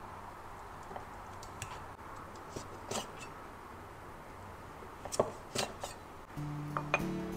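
A few light clicks and taps, like small objects being handled, over quiet room tone. Music comes in near the end.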